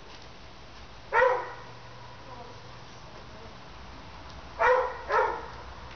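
A dog barking three times: one bark about a second in, then two quick barks close together near the end.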